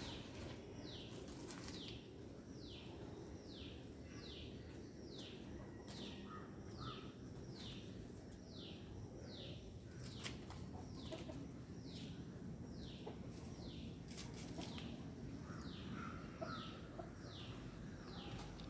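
A chick peeping: a high, falling peep repeated over and over, about twice a second, with short pauses between runs.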